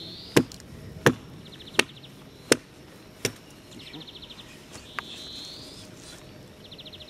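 Axe chopping into a felled birch log: a steady run of sharp blows about three quarters of a second apart, then a pause and one lighter blow about five seconds in.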